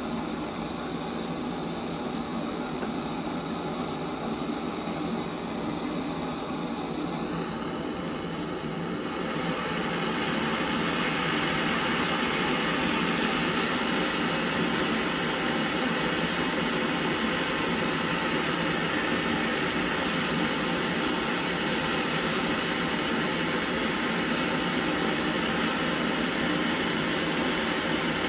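Steady hiss of a gas torch flame heating a brass stove fuel tank for brazing; about nine seconds in it grows louder and brighter, then holds steady.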